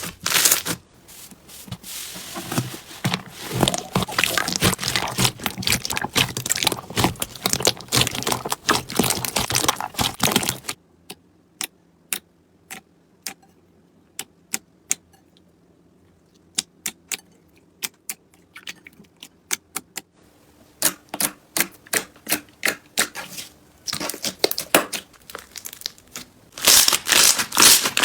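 Slime being squeezed and pressed by hand: a dense run of crackles and pops for about ten seconds, then a stretch of scattered single pops, and dense crackling again near the end.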